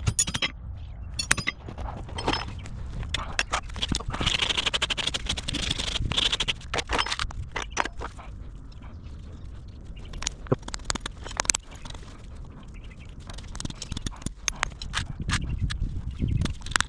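Farrier work on a horse's hoof during shoeing: irregular sharp taps and knocks, with a stretch of scraping about four seconds in.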